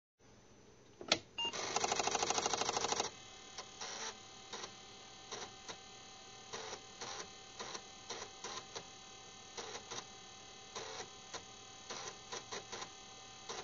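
A single sharp click, then a loud rapid buzz for about a second and a half, then irregular small mechanical clicks, two or three a second, over a steady electrical hum.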